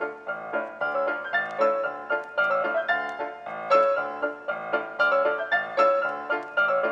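Background piano music, a light melody of quick, evenly paced notes.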